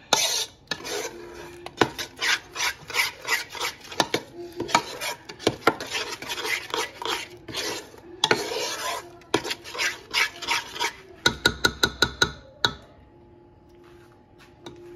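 Metal spoon stirring and scraping a thick yogurt-and-spice marinade around a non-stick pot, in fast irregular strokes against the pan's sides and bottom. Near the end comes a quick run of sharp taps, after which the stirring stops.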